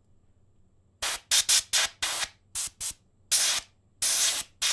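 Can of compressed air spraying in a string of short hissing bursts, about ten of them starting about a second in, some quick puffs and some held a little longer, blowing dust off a laptop keyboard.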